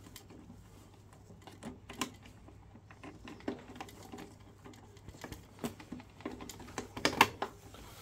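Irregular light clicks and taps of hands handling plastic parts and connectors while a spare display circuit board is fitted into a Biasi combi boiler, coming more often near the end.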